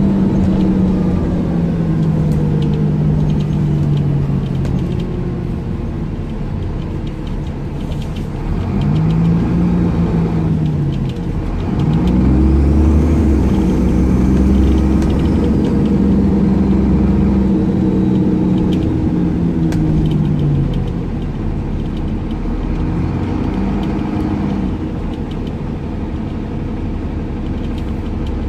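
Retrofitted Cummins ISCe Euro 3 diesel engine of a Dennis Trident 2 double-decker bus, heard from inside the lower deck while the bus is under way. Its note falls, rises and falls again as the bus slows and accelerates, and it is loudest, with a deep rumble, from about twelve to twenty seconds in.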